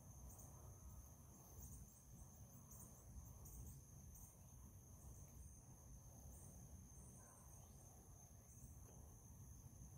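Faint insect chorus: a steady high-pitched trill with short repeated pulses riding on it, over a low rumble.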